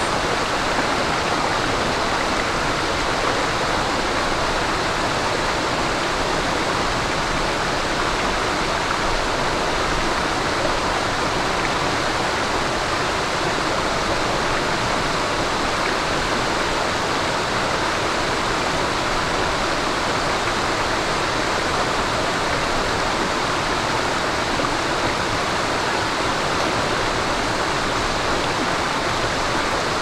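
Shallow mountain stream babbling over rocks: a steady, unbroken rush of running water.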